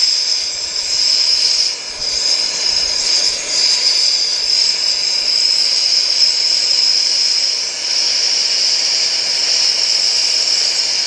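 Air-acetylene hand torch (straight acetylene, no oxygen) burning with a loud, steady hiss, its flame heating a 3/4-inch hot-rolled steel round bar for bending. The hiss dips briefly a couple of times, about two and three and a half seconds in.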